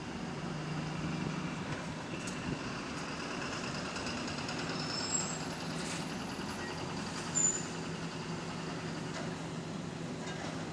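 Bus engine running with a knocking beat, the rod knock of a worn connecting-rod bearing. Two brief high squeaks cut through, the louder one about seven seconds in.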